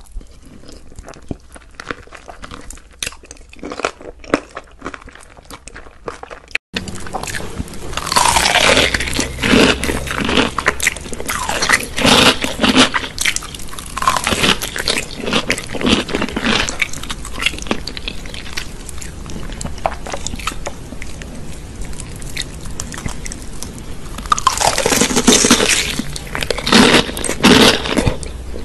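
Close-miked eating: crisp fried chicken being bitten, crunched and chewed, a rapid patter of crackles. It is softer for the first several seconds, then much louder and denser after a sudden cut about seven seconds in.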